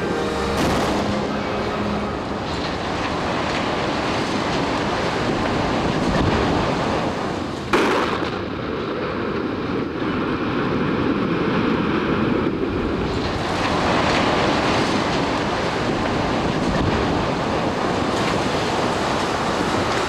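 Explosive demolition of a 17-storey prefab concrete-panel tower block. A sharp blast comes about eight seconds in, after a lighter crack near the start, and is followed by the dense, rushing noise of the building collapsing, all over a steady rushing noise.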